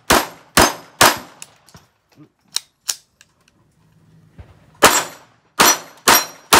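Volquartsen Black Mamba .22 LR pistol fired in two quick strings: three shots, a pause of about three seconds, then four shots. Steel targets ring as they are hit.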